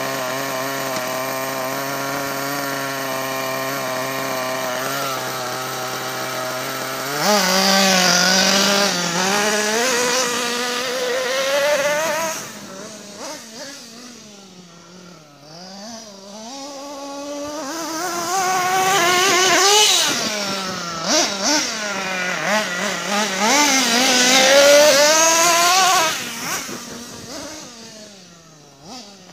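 Kyosho radio-controlled monster truck's small nitro engine running at a steady speed, then about seven seconds in revving higher and rising and falling in pitch again and again as it is driven. It fades in the middle and near the end, coming back louder between.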